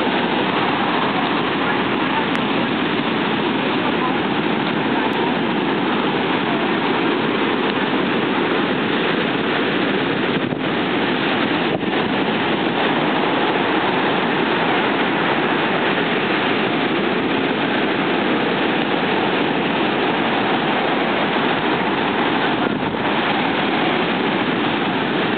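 Heavy tropical-storm surf breaking without a pause: a loud, continuous roar of crashing waves and churning foam that holds steady throughout.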